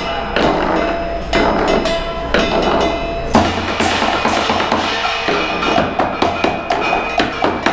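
Chinese drum ensemble playing: a large red barrel drum struck with wooden sticks, over a dense clatter of hand cymbals and small hand percussion. A heavy low drum stroke comes about three and a half seconds in, and the playing settles into a quick even beat of sharp strokes near the end.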